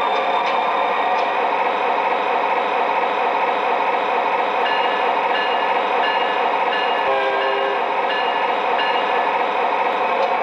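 Diesel engine sound from the speaker of an MTH RailKing O gauge SD45 model locomotive: a steady prime-mover rumble held at one throttle notch. A repeated high tone sounds about twice a second for a few seconds past the middle.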